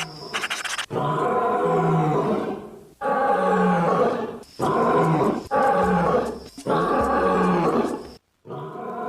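Sound Ideas stock lion-roar sound effect: a lion roaring, repeated about six times in a row, each roar one to two seconds long and cut sharply into the next. It follows a second of rapid clicking.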